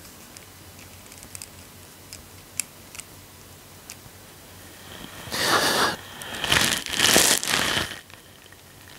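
A man sniffling hard through his nose: faint small clicks and rustles, then three loud rushing sniffs in the second half.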